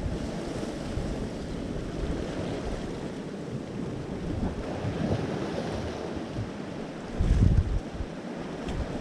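Surf washing against a rocky shoreline, with wind buffeting the microphone in gusts, heaviest about seven seconds in.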